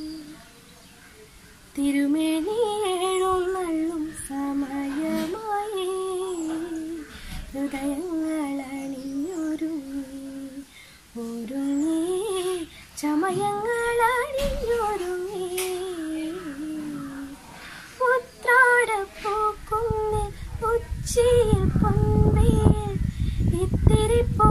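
A young woman singing solo with no accompaniment: long held notes that waver and glide up and down, picking up again after a short pause about two seconds in. A low rumble comes in under the voice over the last few seconds.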